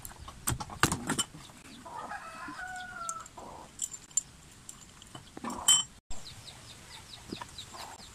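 Sharp metal taps and scrapes as welding slag is chipped off a welded steel pipe, with a clucking animal call in the middle. Near the end, a run of short, quick high chirps.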